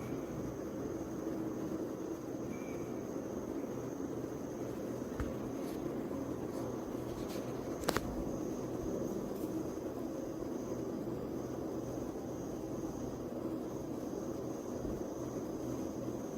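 Steady background hum and hiss with a faint, high, steady whine, broken by a small click about five seconds in and a sharper click or tap about eight seconds in.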